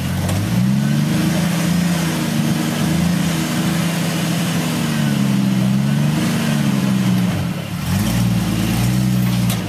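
Off-road vehicle's engine revving up and down at low speed while rock crawling, its pitch rising and falling slowly several times, with a brief dip near the end.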